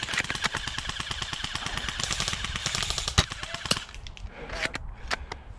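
Airsoft automatic electric gun firing a long full-auto burst, a fast rattle of clicking shots for nearly four seconds, followed by a few single clicks near the end.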